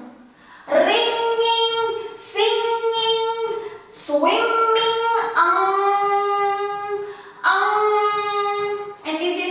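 A high voice singing about five long held notes one after another, with short breaks between them; the last notes are lower.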